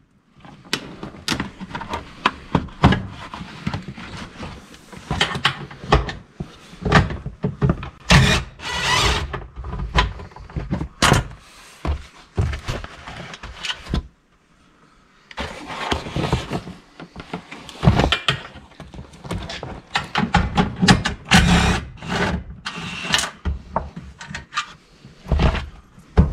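Irregular metal clanks, knocks and rattles from tools and fasteners being worked on the first-generation Honda Insight's metal IMA battery pack cover as it is unbolted. There is a short quiet gap about halfway through.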